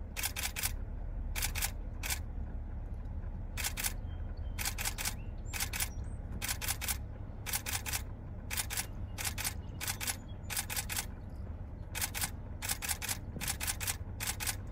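Camera shutters firing in short rapid bursts, mostly two or three clicks at a time, repeating every second or so, over a low steady rumble.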